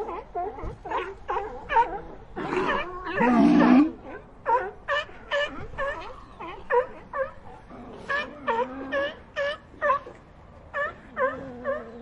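Sea lions barking: a quick run of short barks, a few each second, with one longer, louder, deeper call about three seconds in and a brief lull near the end.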